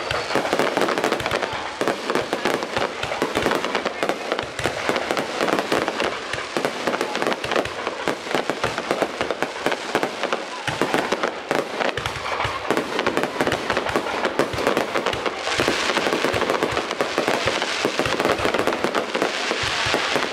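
Fireworks display, a dense unbroken barrage of overlapping cracks and bangs. It swells into a brighter, hissing crackle about three quarters of the way through and again near the end.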